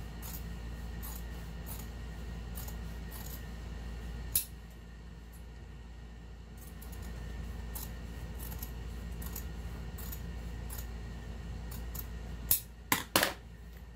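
Scissors snipping through fabric, trimming down the seam allowance of a sewn bag lining: a series of short, irregular cuts, with one sharper click about four seconds in and three louder sharp clicks near the end.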